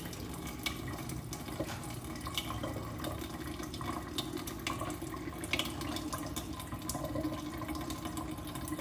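Tap water running steadily from a kitchen faucet fitted with a faucet filter and splashing into the sink, with scattered sharp drip and splash ticks.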